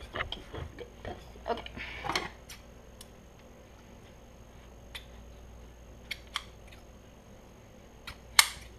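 Light clicks and crackles from hands tearing and handling pieces of a foam squishy toy on a hard tiled table, close together for the first two seconds, then scattered single clicks, with one sharp loud click near the end.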